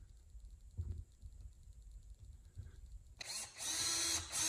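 Cordless drill starting up about three seconds in and running steadily as it bores a pilot hole through drywall for the shelf screws, with a brief dip just before the end. Before it starts there are only faint handling sounds.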